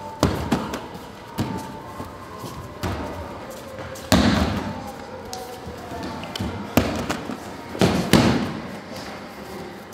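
Repeated thuds and slaps of bodies being thrown onto tatami mats in aikido breakfalls, about seven in all. The heaviest falls come about four seconds in and about eight seconds in, each trailed by a brief rush of rolling and cloth.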